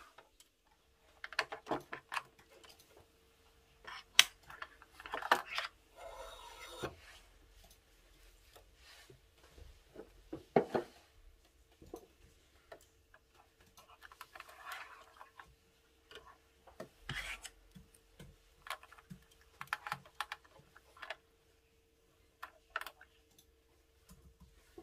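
Scattered clicks, taps and rustles of hands working a Singer Patchwork sewing machine's plastic parts: the drop-in bobbin and its case, the spool and thread guides, with thread pulled through them. There is a short buzzing rattle about six seconds in.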